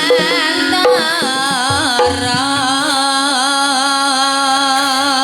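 Live band music: after a few short notes and drum strokes, a singer holds one long note with a wavering vibrato from about a second in.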